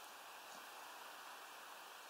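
Near silence: a faint, steady background hiss with no distinct bird calls or pecking.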